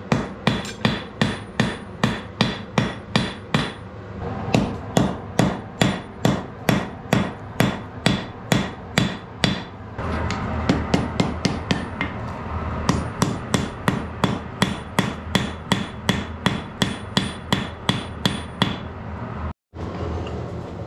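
Hand hammer striking a red-hot bloomery-iron spearhead on a steel anvil, about two to three blows a second, each with a short metallic ring. The blows pause briefly twice and stop near the end.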